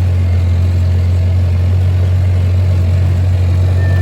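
A vehicle engine running steadily at an even speed, a low constant drone with no revving.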